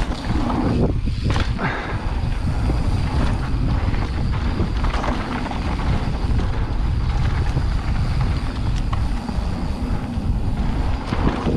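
Wind rumbling on the camera microphone over tyre noise from a mountain bike rolling fast down a dry, dusty dirt trail, with a few light knocks from the bike over bumps.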